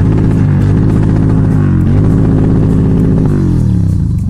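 Motorcycle engine revving under throttle, its pitch rising and falling several times as the rider speeds up and eases off.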